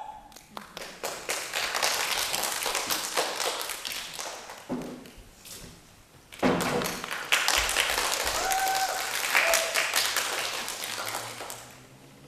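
Applause from a crowd clapping, in two stretches of about four and five seconds with a short lull about five seconds in, and a couple of brief shouts during the second stretch.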